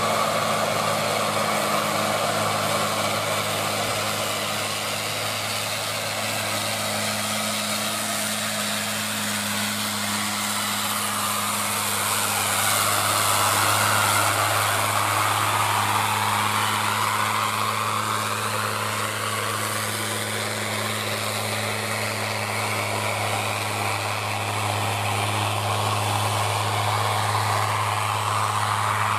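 Loaded Hino dump truck's diesel engine running at steady revs as it climbs a steep grade under a load of rock. The sound swells as the truck passes close by about halfway through, with tyre noise sweeping down in pitch, then it eases off as the truck pulls away.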